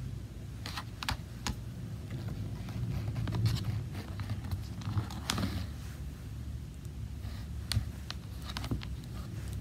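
Irregular light clicks and scratches of a weaving needle and yarn being worked through the warp of a small notched wooden frame loom, over a low steady hum.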